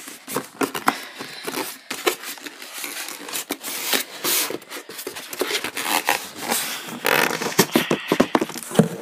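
Plastic wrapping crinkling and styrofoam packing inserts scraping and squeaking as a monitor is lifted out of its box: an irregular string of crackles, rustles and scrapes.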